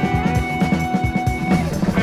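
Prog rock/jazz fusion instrumental music with a busy drum beat. A high sustained note is held for about a second and stops before the end.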